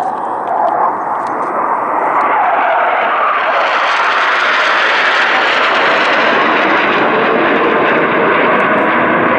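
Four Dassault Rafale M jets, each with two Snecma M88 turbofans, passing overhead in formation: a steady jet roar that turns brighter and sharper about three to four seconds in as they come over, then eases only slightly.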